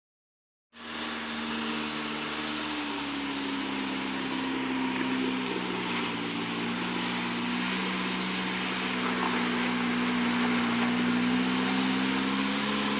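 Lifted Toyota pickup's engine running at low revs as the truck crawls over rocks, its pitch rising and falling gently with the throttle.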